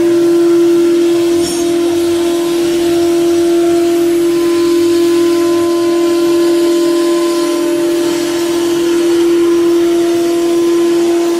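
Air-cooled 9 kW HSD spindle of a CNC router running with a steady whine while its bit carves an MDF panel, with the noise of the cut under it.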